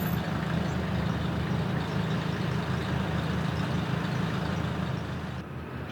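Steady low drone of a large diesel engine running, dropping slightly in level near the end.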